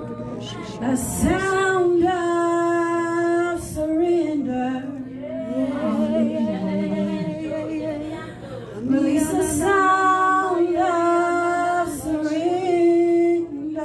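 A woman singing long, held notes in two main phrases, with softer singing in between.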